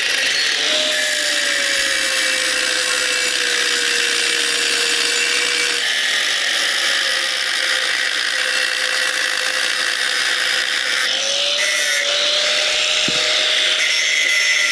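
Electric angle grinder with a cutting disc cutting through thick round steel pipe, giving a steady motor whine under a loud hiss from the cut. The whine sags slightly in pitch as the disc bites, then recovers about two-thirds of the way through.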